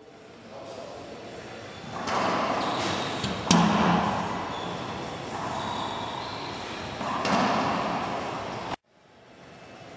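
Racquetball rally: the hollow ball cracking off racquets and the court walls, each hit echoing in the enclosed court. There are several sharp hits, the loudest about three and a half seconds in, and the sound cuts off abruptly near the end.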